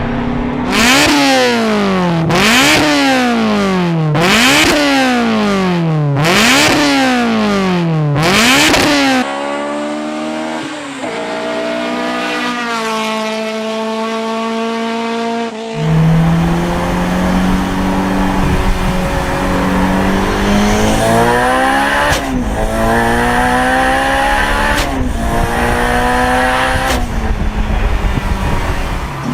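Honda S2000's high-revving VTEC four-cylinder engine: revved hard about five times in quick succession, its pitch shooting up and falling back each time. After a cut, the car accelerates in separate clips, with the engine pitch climbing repeatedly and dropping at each gear change.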